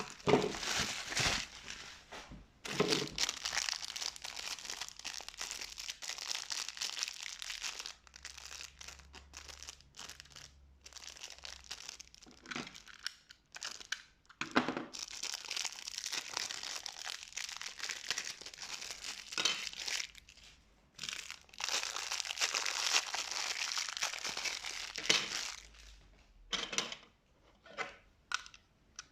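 Packaging being unwrapped by hand: long stretches of crinkling and rustling, with short pauses between, and a few separate crackles near the end.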